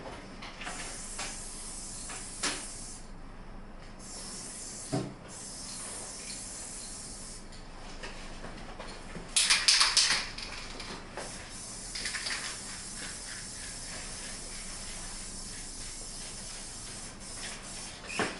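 Aerosol spray-paint can hissing in bursts of varying length as a graffiti piece is sprayed on a wall, loudest about nine to ten seconds in.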